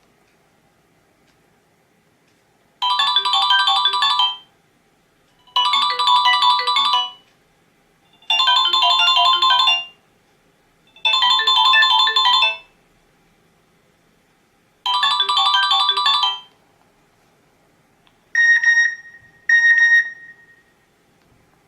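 Nokia N95 built-in ringtone playing: a short bright musical phrase sounds five times with pauses between. Near the end come two shorter beeping tones.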